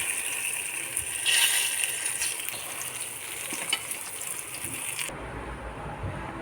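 Eggplant slices sizzling as they fry in hot oil, with a few sharp clicks of a utensil against the pan. The sizzling cuts off suddenly about five seconds in, leaving a low rumble.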